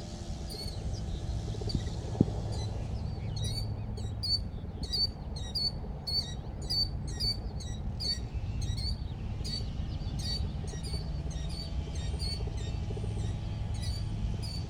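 Small bird chirping over and over, short sharp high calls about two a second, over a steady low hum.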